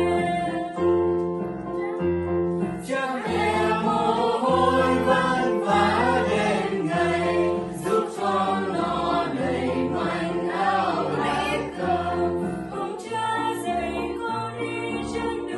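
Mixed choir singing a Vietnamese hymn in parts, over a steady pulse of low keyboard notes.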